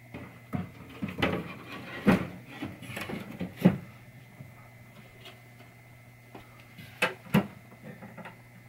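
Back glass of a 1973 Williams Travel Time pinball machine being slid into its wooden backbox and pushed into place. A run of knocks and scraping clunks comes over the first few seconds, then two sharp taps about seven seconds in. The glass is catching at the top on one side and not seating fully.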